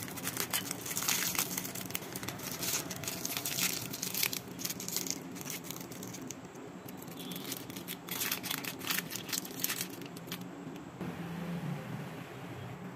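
Foil-lined plastic wrapper of an Oreo ice-cream stick bar crinkling as it is peeled open by hand, in quick irregular crackles that die down about ten seconds in.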